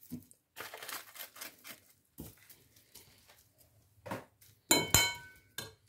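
A metal spoon stirring and scraping through onion and dill in a ceramic bowl, with light clinks. About five seconds in, a few sharper clinks of spoon on bowl, one of them ringing briefly.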